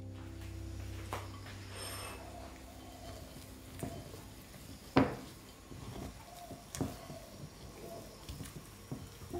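A white spatula scraping and knocking against a ceramic mixing bowl while stirring stiff cookie dough, with scattered clicks and one sharper knock about five seconds in. A music note fades out at the start.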